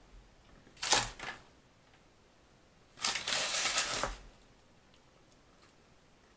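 Close rustling and crinkling from handling a kebab meal as it is eaten. A short, sharp crinkle comes about a second in, and a longer, denser rustle of about a second comes near the middle.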